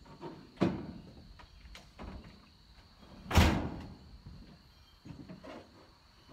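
Scattered knocks and thuds, with one loud bang about three and a half seconds in.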